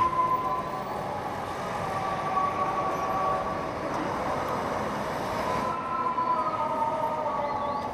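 Busy street traffic ambience: a steady noise of vehicles with high whining tones running through it, which shift about six seconds in.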